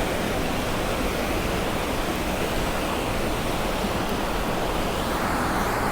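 Steady, even rushing noise with no distinct events, of the kind made by running water or wind.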